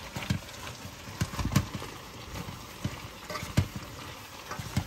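A cooking utensil knocking and clinking against a pot as a brown-stew gravy is stirred, in irregular sharp knocks, the loudest about one and a half and three and a half seconds in.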